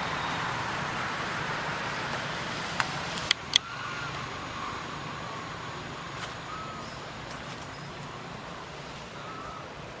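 Steady outdoor background hiss that slowly fades, with three sharp clicks a little after three seconds in and a few faint short chirps.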